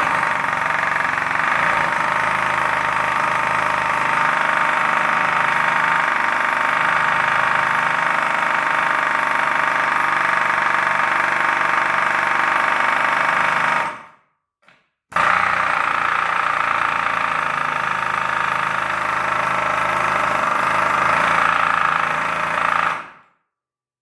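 Pneumatic air hammer running loud and steady on CO2 from a 12 oz paintball cylinder, regulated to about 80 PSI. It runs for about fourteen seconds, stops for a moment, then runs again for about eight seconds and cuts off suddenly.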